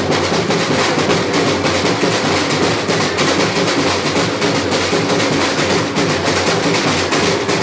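Batucada samba percussion ensemble playing a fast, dense rhythm without a break.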